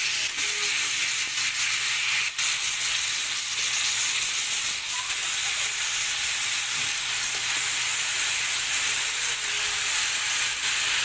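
Chicken pieces sizzling as they are sautéed in hot oil with onion, garlic and ginger, a steady frying hiss.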